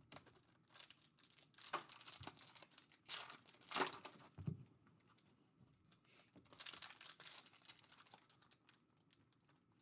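Foil trading-card pack wrapper being torn open and crinkled by hand, in short faint bursts of tearing and rustling with pauses between them.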